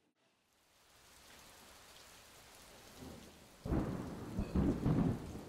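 Thunderstorm: a steady hiss of rain fades in, then thunder rumbles heavily from a little over halfway through.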